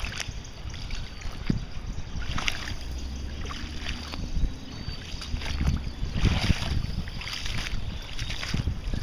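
Footsteps wading through shallow floodwater, each stride splashing and sloshing, repeated at a walking pace.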